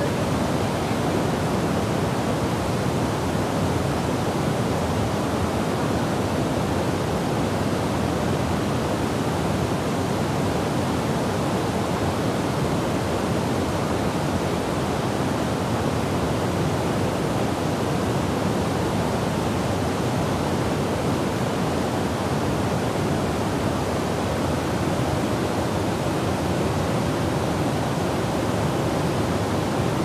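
Masutobi Falls on the Katashina River, a short cascade over a rock step, pouring steadily into a pool: an even, unbroken rush of falling water.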